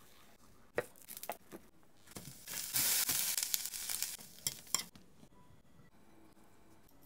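Cabbage, carrot and sausage stir-frying in a hot pan, sizzling for a couple of seconds around the middle. A few sharp utensil clicks against the pan come before and near the end of the sizzle.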